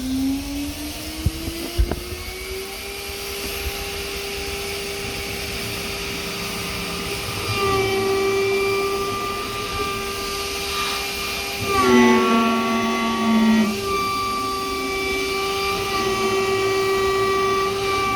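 A 2.2 kW CNC router spindle spins up to about 24,000 rpm: its whine rises for the first two or three seconds, then holds steady. From about halfway through, an 8 mm roughing end mill cutting aluminium makes it louder and harsher, and briefly adds a lower second tone about two-thirds of the way in.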